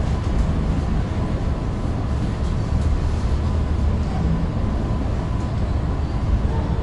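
Suburban electric train in motion heard from inside the carriage: a steady low rumble of wheels on rails and running gear, with a faint steady whine above it.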